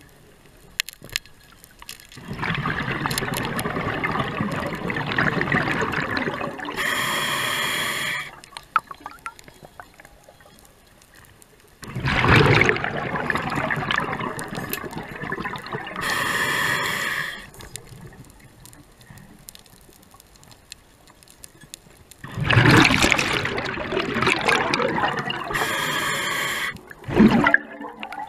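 Scuba regulator breathing underwater, three breaths about ten seconds apart: each is a long gurgling rush of exhaled bubbles followed by a short hiss. A brief bump comes near the end.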